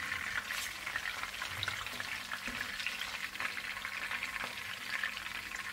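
Boneless chicken thighs sizzling and crackling steadily in hot oil in a frying pan, browned and at the end of frying.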